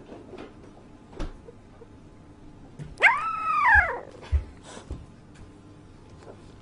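A sleeping puppy gives one whimpering howl in its sleep, about a second long, rising and then falling in pitch, a few seconds in. A couple of soft low thumps follow just after.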